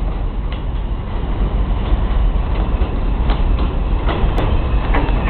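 R142 subway train running along an elevated track: a steady low rumble with sharp wheel clicks over the rail joints that come more often and louder as it draws near. A thin high tone joins in past the middle.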